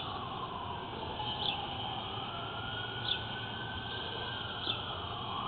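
A siren-like tone wailing slowly down and back up in pitch, with faint ticks about every second and a half.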